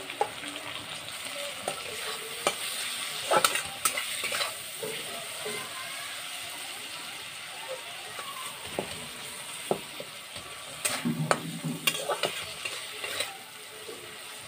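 Onions, tomatoes and ground spices frying in oil in a metal karahi, sizzling steadily, while a flat metal spatula stirs the masala and scrapes against the pan. The scraping clicks come in clusters, about three to four seconds in and again just past the middle.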